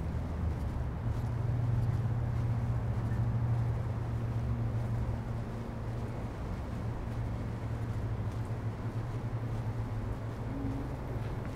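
Steady low rumble of city road traffic, swelling about a second in and easing after about four seconds, as a heavier vehicle passes.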